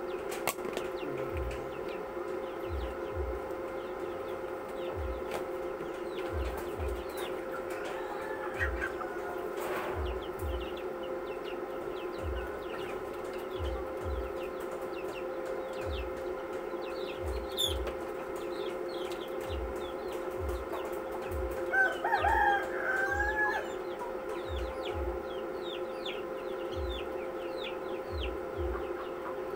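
Chickens clucking with many small high chirps, and one louder wavering chicken call about 22 seconds in. Under them runs a steady hum and a low double thump repeating about once a second.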